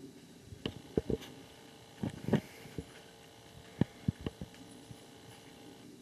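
Red-bellied woodpecker pecking at the dead wood of a snag while excavating a nest hole: about a dozen sharp, irregular knocks, some in quick pairs.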